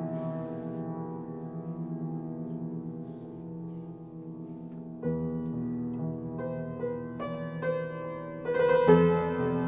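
Solo piano playing slow, sustained chords. A held chord fades over the first few seconds; a new chord is struck about five seconds in, followed by a few higher single notes and a louder chord near the end.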